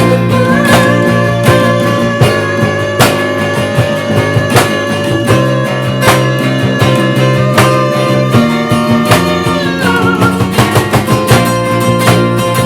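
Instrumental break of a band song, led by guitars playing with a steady beat; no singing.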